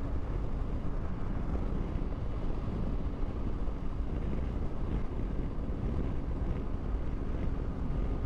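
Triumph Tiger 800's three-cylinder engine running at a steady cruise, mixed with road rumble and wind rushing over the microphone.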